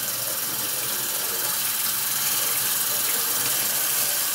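Kitchen faucet running in a steady stream into a stainless steel sink, the water splashing over a peeled potato being rinsed under it.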